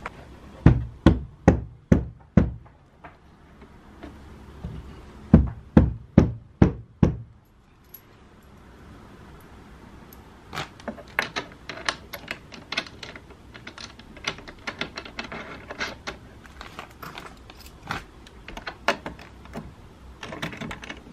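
Dull knocks on a wooden flat-pack sofa frame during assembly, five in quick succession and then five more a few seconds later. After that come irregular small clicks and rattles of metal fittings handled over a plastic hardware bag.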